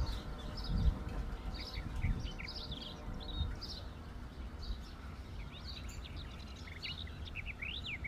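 Several songbirds chirping and singing at once, a steady chorus of short, high calls. Underneath runs a low rumble, with a couple of bumps about one and two seconds in.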